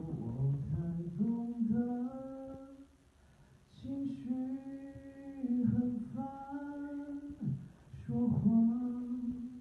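A man singing unaccompanied into a handheld microphone, in phrases of long held notes. There is a short pause about three seconds in.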